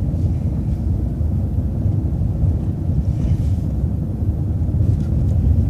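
City transit bus driving, a steady low rumble of engine and road noise.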